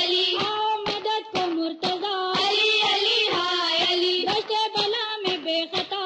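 A woman's voice chanting an Urdu noha, a Shia lament, in a steady sung melody, over a regular thumping beat of about two strokes a second.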